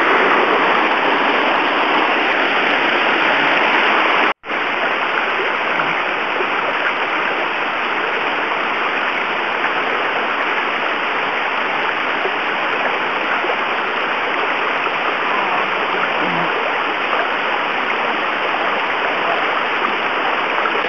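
Rushing water of a rainforest stream and a waterfall pouring down a rock face: a steady, even hiss. It cuts out completely for an instant about four seconds in, then carries on a little quieter.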